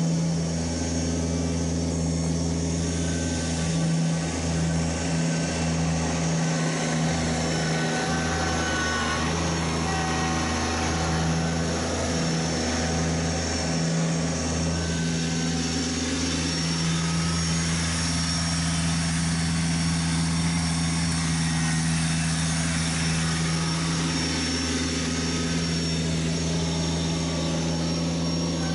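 Kubota BX1870 compact tractor's three-cylinder diesel engine running steadily as it plows snow.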